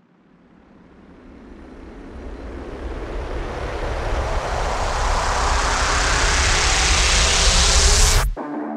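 A rushing noise riser, a transition sound effect, swelling steadily louder and brighter for about eight seconds, then cutting off suddenly.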